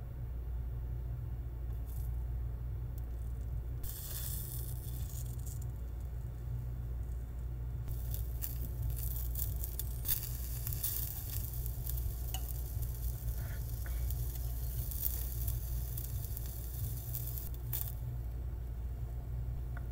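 Tiny egg-dipped meat-and-vegetable skewers sizzling as they fry on a miniature metal griddle. The sizzle starts briefly about four seconds in, then runs steadily from about eight seconds until near the end, over a steady low hum.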